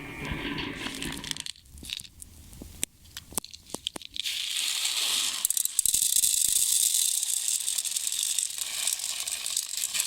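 Small hard crackling firework stars handled in a container and plastic bag: a few separate clicks, then from about four seconds in a steady, dense rattle as the little pellets are poured out for weighing.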